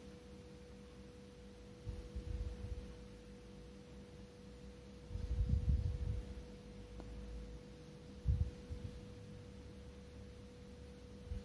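Soft, low handling bumps and rubbing as fingers work open a two-part metal modak mould to release a filled dumpling, loudest about five to six seconds in, over a steady faint hum.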